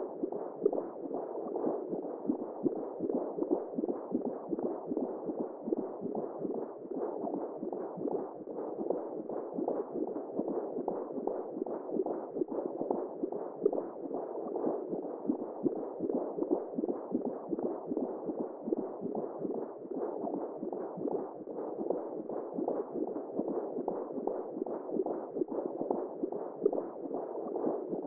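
Womb sound for soothing a baby: a steady, muffled whooshing noise with a constant fine flutter and nothing above the low-mid range.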